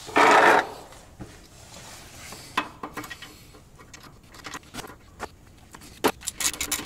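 Small metal clicks, taps and scrapes of hand tools as a helicoil thread insert is worked into the freshly tapped shock-bolt hole in a cast iron suspension knuckle. The clicks come sparsely, then in a quick cluster near the end, after a short loud scuffing noise right at the start.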